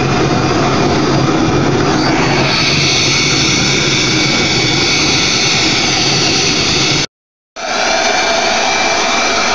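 Handheld hair dryer blowing steadily at close range, its whine changing about two seconds in. The sound cuts out completely for about half a second near seven seconds, then resumes.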